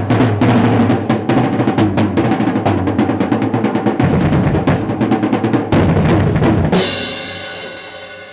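Acoustic drum kit solo: fast rolls across the snare and toms over a driving bass drum. About two-thirds of the way through the playing stops on a final crash that rings on and slowly fades.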